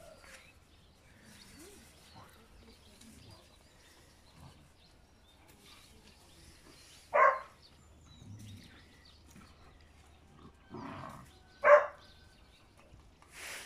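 Young dogs at play giving two short, sharp barks, one about seven seconds in and one near the end, with a softer call just before the second.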